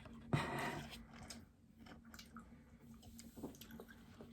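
A crunchy matcha-filled chocolate snack is bitten about a third of a second in, then chewed quietly with small crackles and clicks.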